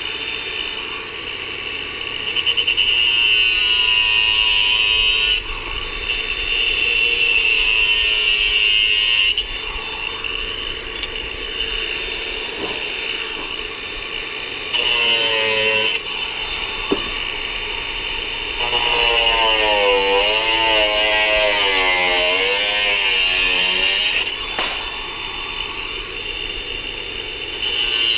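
Cordless Makita angle grinder with a cutting disc slicing through thin sheet steel to cut out body patches. The sound comes in five cutting passes of one to six seconds, louder and wavering in pitch while the disc is in the metal, dropping back to the quieter free-spinning whine between passes.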